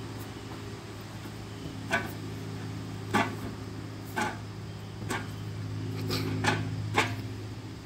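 A steady low mechanical hum throughout, with about seven sharp clicks or knocks spaced roughly a second apart, coming closer together near the end.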